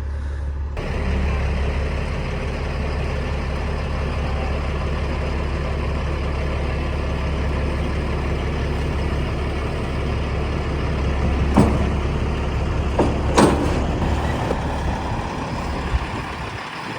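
Diesel semi truck engine running with a steady low drone while the truck backs up to couple onto a trailer. A few short, sharp sounds stand out around twelve and thirteen seconds in, and the engine sound drops away near the end.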